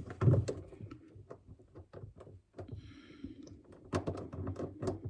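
Scattered clicks, taps and knocks of a cable and plastic freezer parts being handled and pushed into place, with a short scraping rustle about three seconds in.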